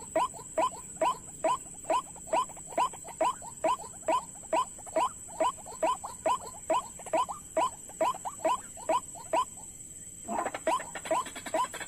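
White-breasted waterhen calls: a regular series of short downward-sliding notes, a little over two a second. About ten seconds in they give way to a denser, overlapping jumble of calls.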